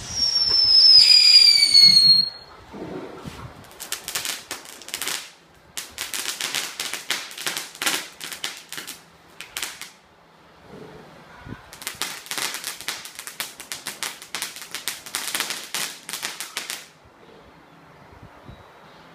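Ground firework going off: a loud whistle falling slightly in pitch for about two seconds, then rapid firecracker crackling in two runs of several seconds each.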